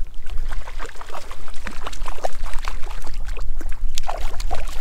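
Irregular splashing of water as a hooked brook trout thrashes at the surface close to a float tube, being played in on a spinning rod.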